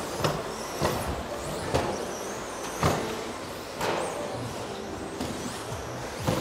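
Electric 1/10 modified RC stadium trucks racing, with a faint high wavering motor whine. About six sharp knocks come at irregular intervals of roughly a second as the trucks land and hit the track, each with a short echo from the hall.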